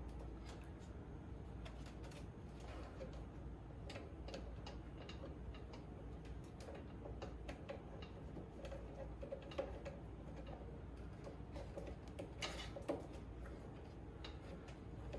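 Faint, irregular light clicks and taps of hand tools and wire terminals being handled during wiring work on a mower's electrical connections, with a couple of sharper clicks near the end.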